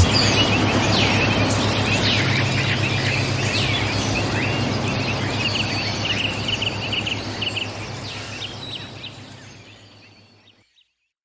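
Birds chirping over a steady low drone and a hiss of background noise, the whole soundscape fading out to silence near the end.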